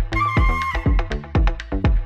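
Background electronic dance music with a steady kick-drum beat, about two beats a second, and a short held high note in the first second.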